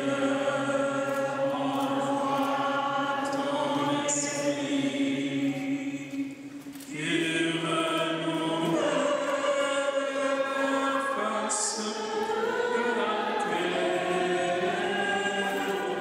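A choir singing slow, held notes of a hymn, with a brief break about six and a half seconds in before the next phrase starts.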